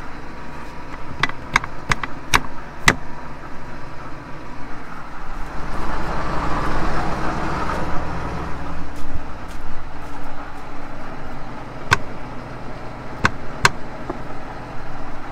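Tractor diesel engine idling steadily. Over it come sharp metallic clicks as the grain drill's seed-rate adjustment lever is moved: a cluster in the first three seconds and a few more near the end. A stretch of rustling comes about six to eight seconds in.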